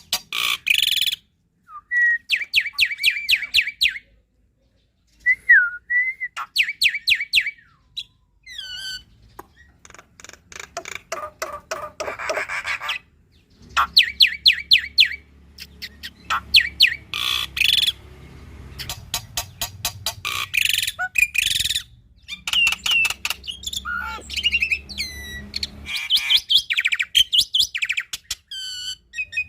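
Black-winged starling (jalak putih) singing hard: fast chattering runs of rapidly repeated notes broken by short whistled slurs and brief pauses.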